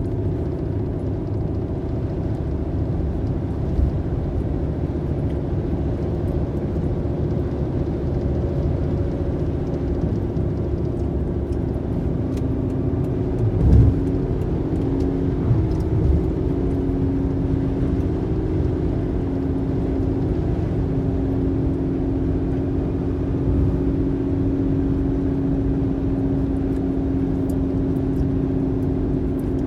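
Car driving along: a steady engine and road rumble with a low hum, and a brief thump near the middle.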